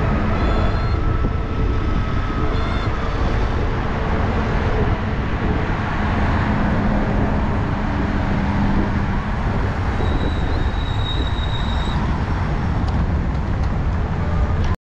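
Wind buffeting an action camera's microphone while riding an electric scooter at about 23 km/h, with tyre and road noise and a faint steady whine.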